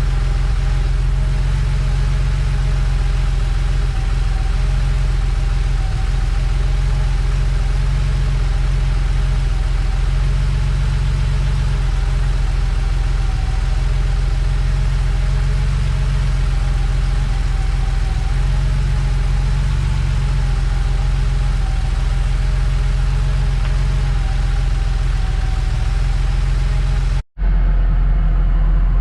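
1987 Porsche 911 Carrera's air-cooled flat-six idling steadily with the air conditioning running during an R12 recharge. The sound cuts out for a moment near the end.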